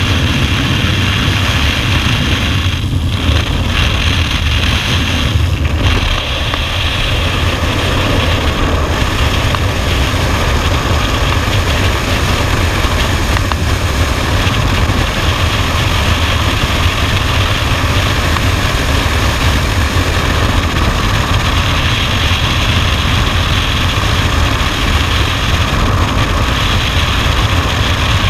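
Loud, steady wind rush buffeting a skydiver's camera microphone in freefall, after the exit from an aircraft door with its propeller running in the first few seconds.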